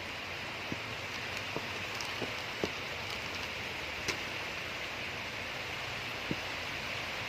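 Steady hiss of heavy typhoon rain, with a few scattered short ticks and taps.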